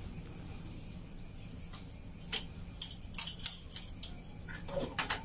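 A few light, irregular clicks and clinks over a low steady hum, most of them in the second half.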